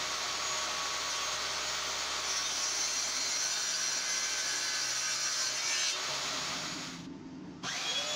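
Benchtop table saw running and cutting through plywood with its blade tilted to 45 degrees, then dying away about seven seconds in. Just before the end a mitre saw starts up with a steady whine.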